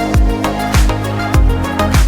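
Background music with a steady beat: a deep kick drum about every 0.6 seconds under held synth-like chords.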